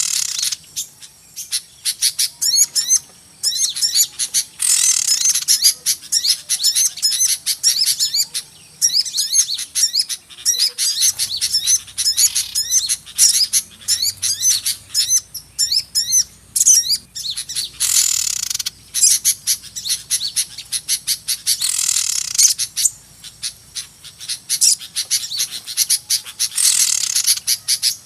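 Dense chorus of many small birds chirping rapidly and excitedly, a "burcil ribut" lure call used to draw small birds to a trap. A few harsher, louder outbursts of calling break in about 5, 18, 22 and 27 seconds in.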